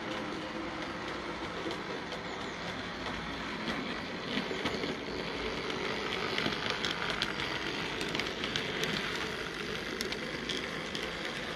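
A small 00 gauge model tank locomotive and coach running along the track, the motor and wheels making a steady running noise. From about four seconds in, as the train passes close, it gets louder, with the wheels clicking over the rail joints and points.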